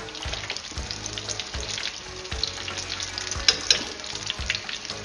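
Sesame-coated prawn toast deep-frying in hot oil, sizzling and crackling steadily, with two sharper louder clicks about three and a half seconds in.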